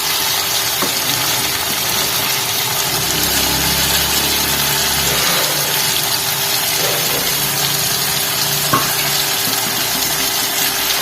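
Steady hiss of a lit gas stove burner under a pan of cooking sabzi, with a steady hum beneath and a couple of light clicks, the sharpest about nine seconds in.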